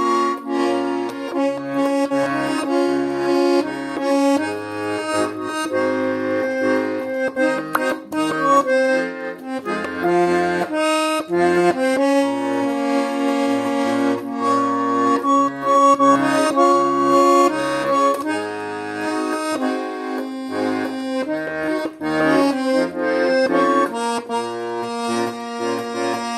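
Garmon, a Russian button accordion, playing a song melody on the right-hand buttons over a rhythmic, steady bass-and-chord accompaniment from the left hand.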